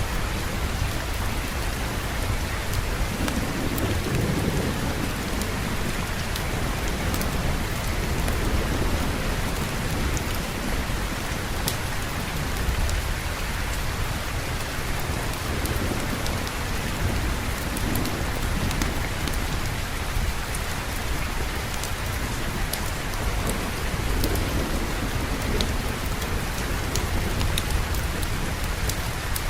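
Steady rain falling, with a low rolling thunder rumble underneath that swells a few seconds in and again near the end.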